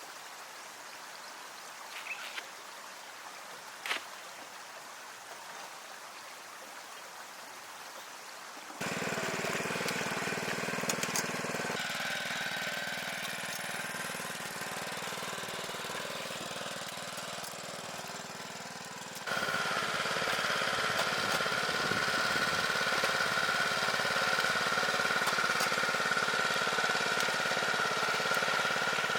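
Quiet outdoor ambience with a few light clicks, then a small engine running steadily from about nine seconds in. After about nineteen seconds it is louder, with a steady whine on top.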